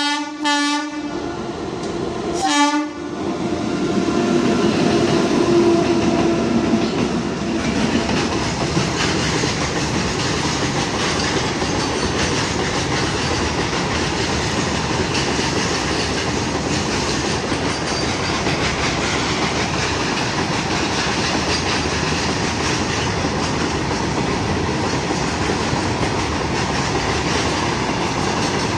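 Electric freight locomotive's horn sounding, ending about a second in, then one short blast about two and a half seconds in. After that, a long string of open freight wagons rolls past close by with steady wheel clatter and rumble.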